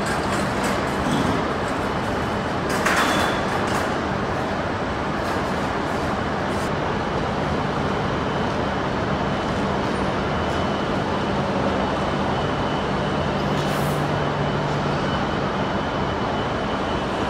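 E5 Hayabusa and E6 Komachi shinkansen sets splitting at a platform as the Komachi draws away: steady running noise of the trains with a low electrical hum and a faint high whine. A brief burst of noise comes about three seconds in.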